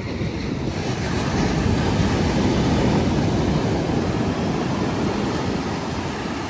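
Ocean surf breaking and washing up the beach: a steady rushing noise, heavy in the low end, that swells to its loudest two or three seconds in and then eases.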